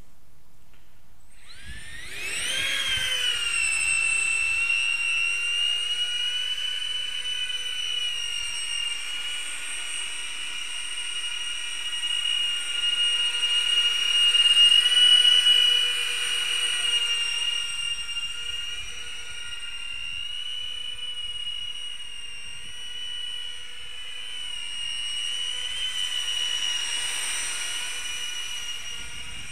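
The electric ducted fans of a thrust-vectoring drone spool up with a quickly rising whine about two seconds in. They then hold a steady high-pitched whine through the flight, loudest about halfway through as the drone hovers close.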